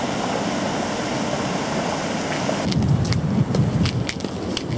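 Wind rushing over the camera microphone, changing a little past halfway to low gusty buffeting with a run of sharp clicks from footsteps on the concrete walkway.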